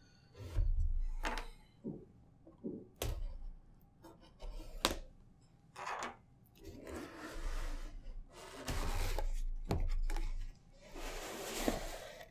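Cardboard packaging being opened and handled: a series of knocks and clicks, with stretches of rustling and scraping as the box parts are moved.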